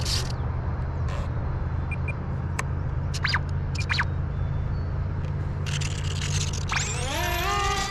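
Steady low hum with scattered handling scrapes and clicks. About seven seconds in, a whine with several overtones rises in pitch and then holds, as the model plane's electric motor and propeller spool up.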